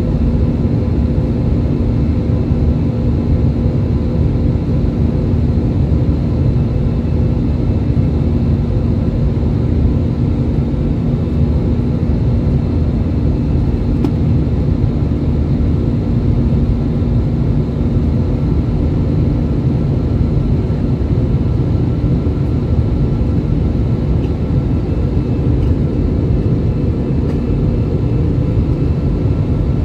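Steady roar of an Airbus A319-115's CFM56 jet engines and the rushing air, heard inside the cabin from a window seat over the wing during the climb. A deep rumble with a steady low hum running through it, unchanging throughout.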